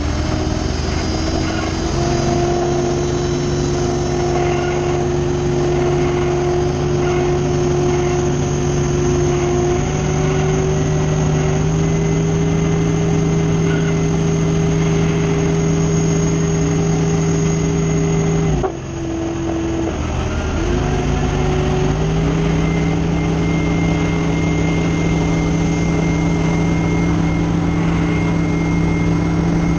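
Aircraft pushback tug's engine running as the tug drives, its pitch stepping up in stages. About two-thirds of the way through, the engine drops away for about a second, then climbs back up.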